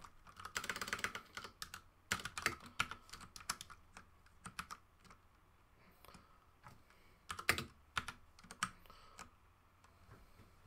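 Computer keyboard typing in short bursts with pauses: a rapid run of keystrokes near the start, scattered keys after it, and a few louder strokes about seven and a half seconds in.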